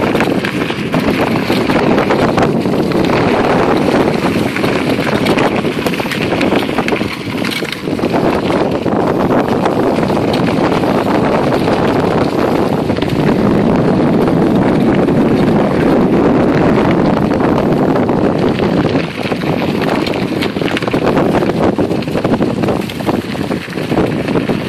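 Loud, steady rush of wind on the microphone mixed with a bicycle's tyres rolling over a trail thick with dry fallen leaves.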